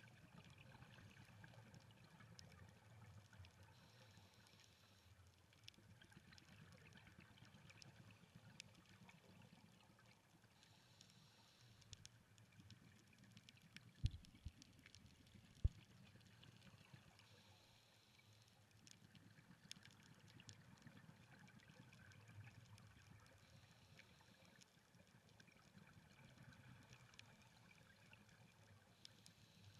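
Faint, muffled underwater sound heard through a camera housing: scuba regulator exhaust bubbles swelling and fading every several seconds over a low rumble. Two sharp knocks about a second and a half apart near the middle.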